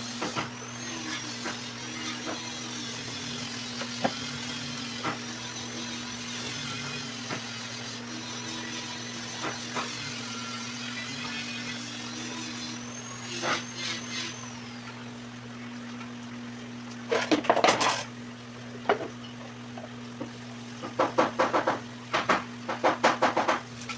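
Steady low hum of a car engine running, heard from inside the car, with scattered small clicks. Louder short sounds come in bursts from about two-thirds of the way in.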